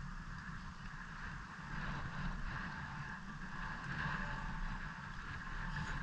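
Wind buffeting the microphone: a steady gusty rumble with a band of hiss over it.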